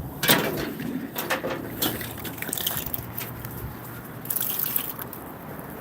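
Water splashing and dripping in short, irregular bits, with a brief hiss about four seconds in.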